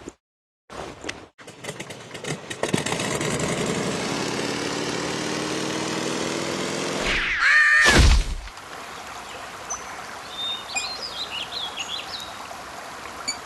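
A steady rushing hiss builds up, then a loud whoosh with a bending tone comes about seven seconds in. After that, small birds chirp over a softer running-water-like hiss.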